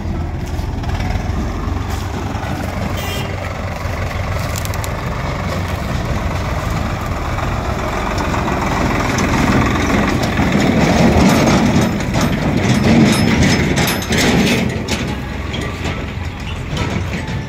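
Diesel farm tractors hauling trolleys loaded with soil drive past close by, their engines running under load, with short knocks and rattles from the trolleys; the sound builds to its loudest past the middle and eases near the end.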